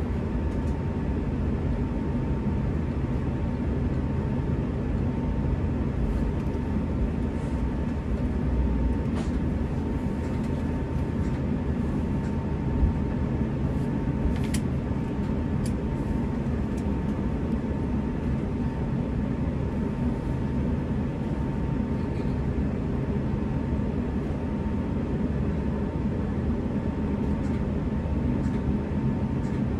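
Steady cabin noise aboard an Airbus A350 airliner: an even, unchanging low rumble of engines and airflow with a faint steady whine, and a few light clicks.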